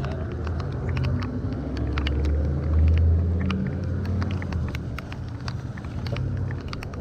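A motor vehicle's engine running close by with a low rumble that swells about two to three seconds in and then eases off, with many short sharp ticks over it.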